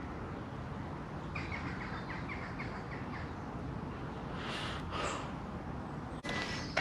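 Woodland ambience with a steady low rumble, and a small bird giving a quick run of short chirps about a second and a half in. A sharp click comes right at the end.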